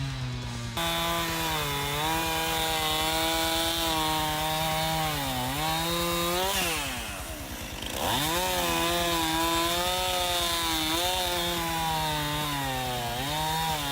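Two-stroke chainsaw running at high revs while bucking logs, its pitch sagging and recovering as the chain bites into the wood. About seven seconds in, the engine drops briefly toward idle, then revs back up and cuts on.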